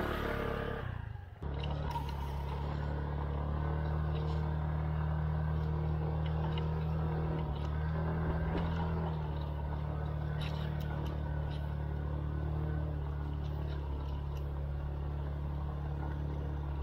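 SYM KRN scooter's single-cylinder engine running steadily under way, with scattered small clicks and knocks over it.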